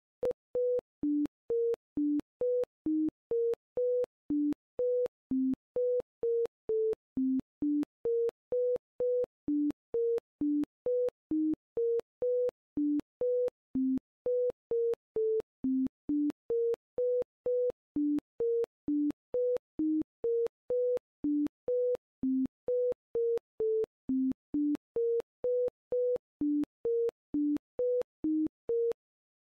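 A custom electronic sound tone: short pure beeps at about two a second. Most sit at one middle pitch, with frequent drops to two lower pitches, and each beep starts and stops with a faint click.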